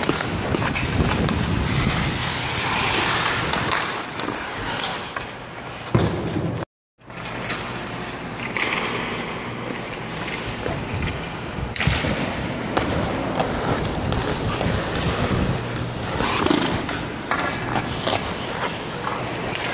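Ice hockey skates scraping and carving across rink ice, with scattered knocks of sticks and puck. The sound cuts out completely for a moment about seven seconds in.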